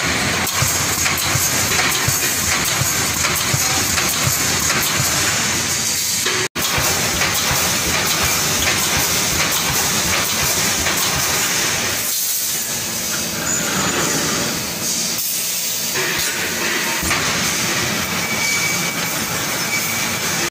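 Rebar mesh welding machine running: a steady hiss with a dense, rapid clatter from its row of pneumatic welding heads. The sound drops out for an instant about six and a half seconds in.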